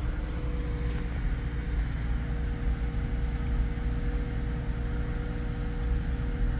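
Infiniti Q50 Red Sport 400's twin-turbo V6 idling steadily, heard from inside the cabin as a low rumble, with a faint steady whine over it.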